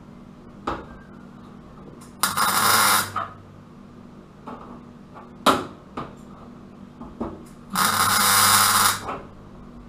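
Two electric-arc tack welds on the car's steel wheel arch lip, each about a second long, a loud crackling hiss with a mains buzz under it. Several sharp single clicks and taps come between them.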